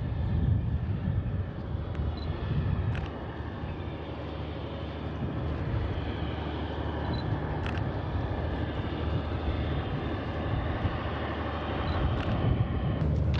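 Diesel locomotive slowly pushing a Soyuz rocket on its rail transporter car, a steady low rumble of engine and rolling wheels, with a few faint sharp clicks.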